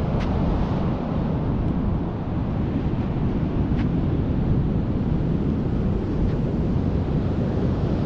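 Wind noise on the microphone, a steady low rush, over the wash of ocean surf breaking on a sandy beach.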